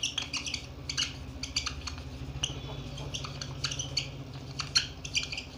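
Marker pen squeaking on a whiteboard in short, irregular strokes as words are written, over a steady low hum.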